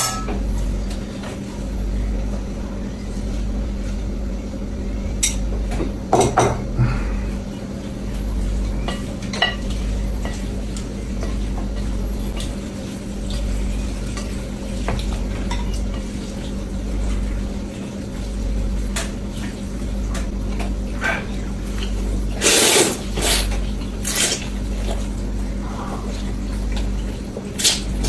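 Eating utensils clinking and scraping against a bowl every few seconds, the loudest clatter about three-quarters of the way through, over a steady low hum.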